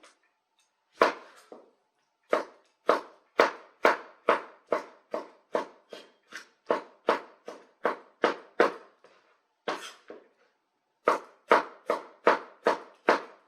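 Kitchen knife chopping a fresh tomato on a cutting board: a steady run of sharp knocks, about two or three a second, with a couple of brief pauses.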